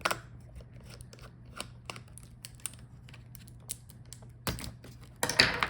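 Small, irregular clicks and taps of a hand screwdriver and tools working on a laptop's fan and heatsink assembly, with a louder scrape near the end, over a steady low hum.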